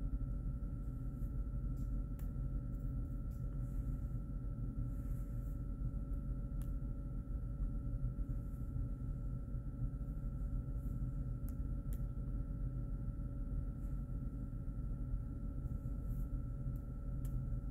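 Steady low room hum with two faint, constant high tones and a few faint clicks.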